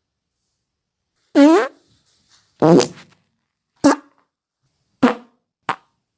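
Meme sound effect: five short, pitched blurts about a second apart, the first bending in pitch and the last three very brief.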